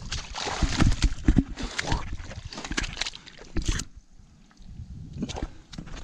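A large smallmouth buffalo thrashing in shallow water and mud as it is grabbed by hand and dragged up a muddy bank: irregular splashes and wet slaps that ease off about four seconds in.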